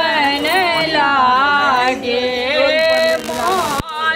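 A woman's voice singing a melody with long held, gliding notes. The sound cuts off abruptly near the end.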